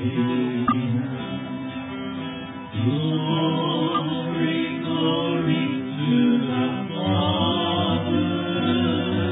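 Live gospel band playing: acoustic guitars with sustained singing, the music getting louder about three seconds in.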